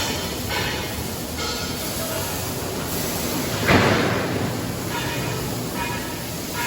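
Conveyor machinery feeding a baler, running with a steady rumbling clatter, and one loud clunk about four seconds in.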